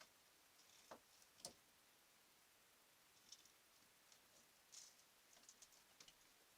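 Faint, scattered footsteps and light scratching of a raccoon moving about a shed floor. There are a couple of sharper taps about a second in, then irregular light clicks and patters.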